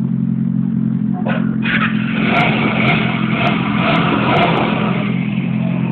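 Motorcycle engines idling steadily at the kerb. From about a second in to about five seconds in, a rougher, higher-pitched sound rides over the idle.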